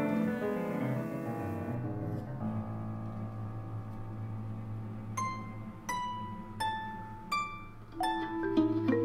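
Instrumental chamber music: ringing chords fade over the first two seconds, then a held low note sounds under single plucked harp notes about every 0.7 s from about five seconds in, the playing growing busier near the end.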